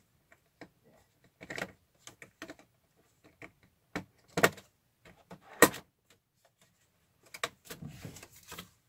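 Cardboard advent calendar door being picked and pried open by fingernails: scattered scrapes and clicks, two sharp snaps in the middle as the perforated door gives, then a spell of rustling near the end as the compartment is reached into.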